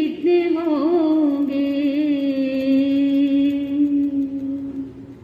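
A Jain sadhvi (nun) sings solo, a woman's voice with a few quick ornaments about a second in, then one long held note that fades out near the end.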